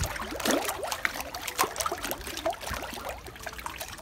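Thick, slime-like gelled bath water sloshing, with many small wet splats and drips as a person moves her arms and legs in it.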